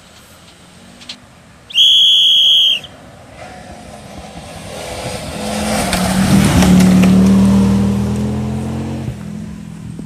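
A loud, steady high-pitched tone lasting about a second, then the Audi Quattro Group 4 rally car's turbocharged five-cylinder engine passing at speed on a gravel stage: it builds to its loudest in the middle, its note changing pitch, and fades as the car pulls away.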